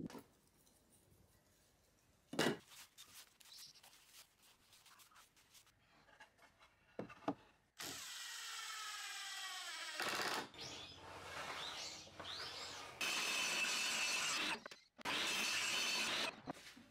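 Woodworking tool sounds: a knock and light clicks of wood being handled, then a cordless driver's motor whining and falling in pitch as it winds down about 8 s in. From about 10 s on come louder stretches of power-tool noise, the loudest near the end from a table saw cutting a board, which stops abruptly.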